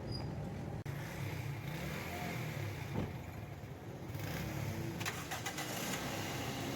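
Toyota Corolla GLI engine running steadily at idle after its faulty number 3 ignition coil has been replaced. A few light clicks are heard about three seconds in and again near five seconds.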